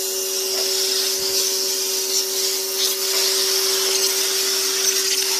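Sun Joe 1450 PSI electric pressure washer running steadily, its motor and pump giving an even hum while the water jet hisses against a car door panel.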